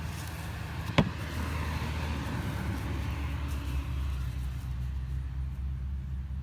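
A steady low mechanical hum, with one sharp knock about a second in and a light rustle over the following few seconds.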